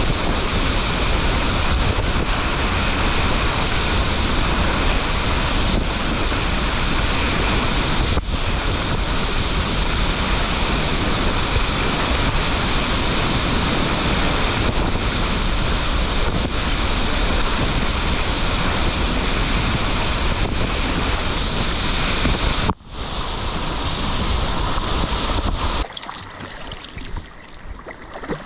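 Whitewater rapid rushing and splashing loudly around a kayak and its GoPro camera. There is a sudden brief dropout a little before the end. After that the roar falls away to quieter moving water and splashing.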